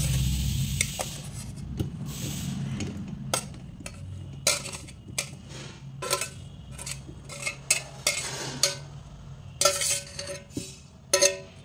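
Steel bowl being tipped into a mesh sieve as syrup-soaked amla (Indian gooseberry) pieces slide out: a trickle of syrup at first, then a run of clinks and knocks as the bowl taps the sieve, a few of them ringing briefly near the end.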